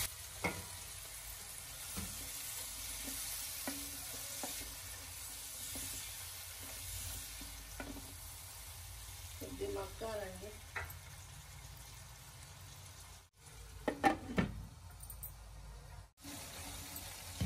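Cut flat beans (chikkudukaya) frying in oil in a nonstick kadai with a steady low sizzle. A wooden spatula stirs and scrapes them, with occasional light taps against the pan.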